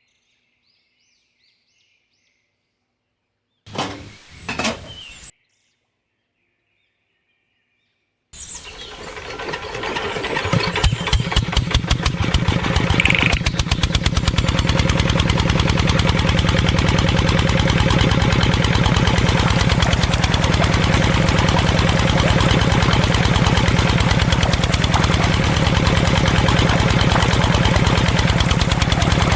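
A small motor starts about eight seconds in, gathers speed over a couple of seconds, then runs steadily with a fast, even beat. Before that there is near silence, broken about four seconds in by two short sounds.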